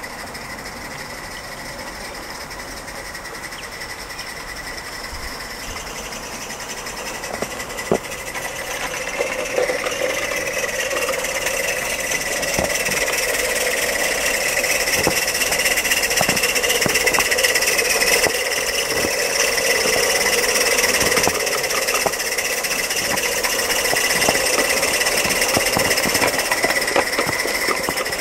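Mamod Double Fairlie live-steam garden-railway locomotive running while working through deep snow: a steady steam hiss over a rapid mechanical clatter, growing louder over the first half.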